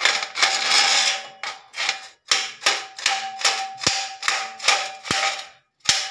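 Rapid metal-on-metal tapping, about three strikes a second with a short ringing note after each: a flathead screwdriver knocking on overlapped steel furring channels to crimp the joint so it locks without rivets.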